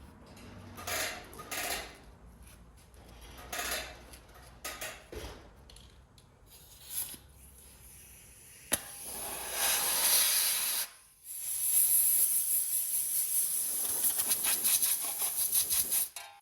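Compressed-air blow gun blowing off a freshly drilled steering knuckle: a few short hissing blasts at first, then a sharp click about nine seconds in and long, loud blasts of air with a brief break in the middle, cutting off suddenly near the end.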